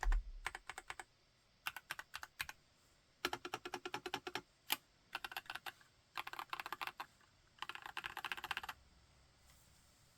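Mechanical keyboard with JWK switches (TX EO87 r3) being typed on in quick runs of keystrokes with short pauses between them. The typing stops about nine seconds in.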